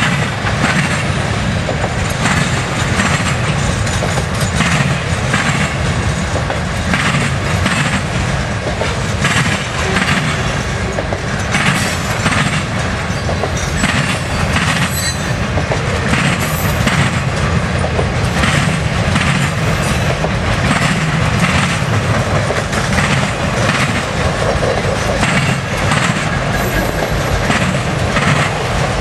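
Norfolk Southern freight train's cars rolling past: a loud, steady rumble with wheels clacking over rail joints in an uneven rhythm, and a faint high wheel squeal about halfway through.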